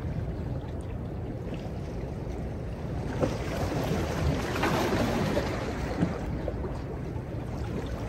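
Seawater washing and lapping among jetty boulders under a steady wind rumble on the microphone. The wash swells for a few seconds about three seconds in, with a couple of light knocks.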